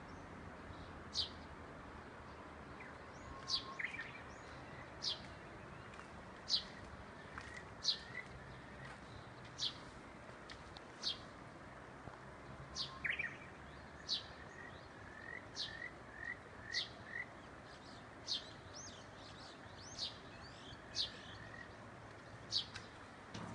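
Birds calling: a short, high note that sweeps downward, repeated about every one and a half seconds, with softer little chirps in between. Under it is a steady outdoor hiss.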